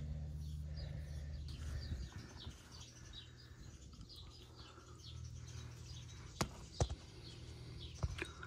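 Small birds chirping repeatedly over a low steady hum, with three sharp clicks, about six and a half, seven and eight seconds in.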